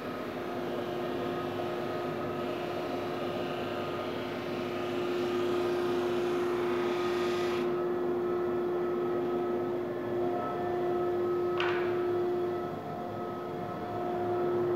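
Powermatic 2244 drum sander running with its dust collection: a steady motor hum with a higher hiss as a board feeds through, the hiss cutting off about eight seconds in. A single short knock comes about twelve seconds in.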